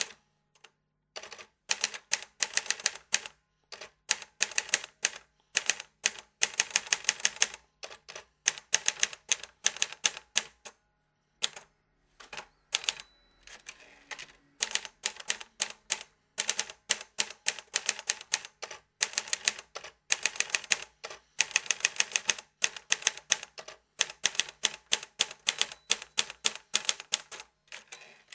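Typewriter keys clacking in rapid runs of strikes, with short pauses between runs: a typewriter sound effect for on-screen text typing itself out letter by letter.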